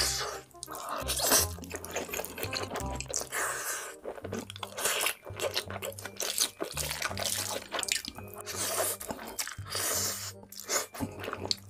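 Wet slurping and chewing of black bean sauce noodles (jjajangmyeon), repeated through the stretch, over background music with a low bass line.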